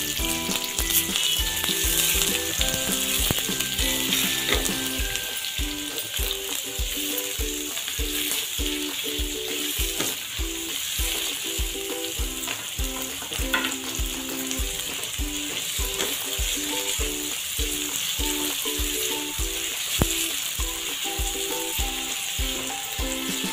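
Sliced onions sizzling steadily in hot oil in a steel kadhai, being sautéed and stirred with a silicone spatula. Soft background music with a steady beat runs underneath.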